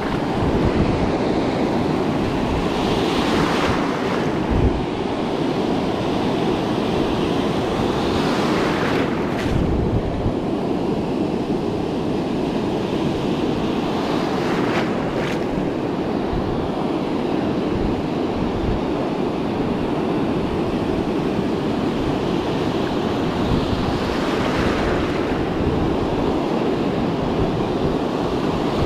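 Ocean surf breaking and washing up the beach. The hiss swells as each wave breaks, about four times, with wind buffeting the microphone throughout.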